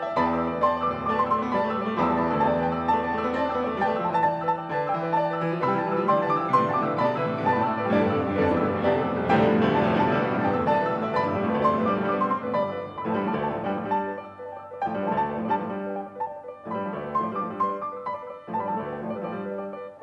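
Several grand pianos played together in a dense texture of repeated notes and chords. About thirteen seconds in, the playing thins to short phrases broken by brief pauses.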